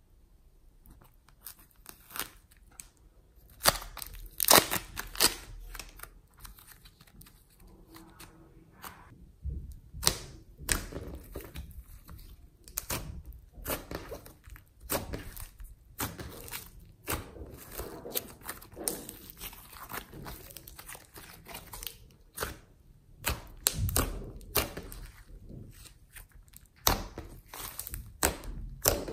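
Fingers pressing, folding and stretching glossy slime mixed with soft clay: sticky crackling and tearing with many sharp, irregular clicks and pops.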